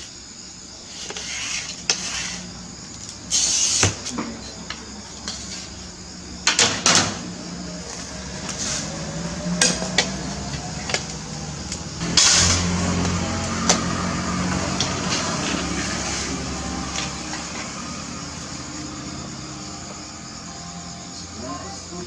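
Hand glass cutter scoring sheets of glass: a few short scratchy strokes, with sharp clicks and knocks of glass and tools on the table. A steady low hum comes in about halfway, over a constant thin high whine.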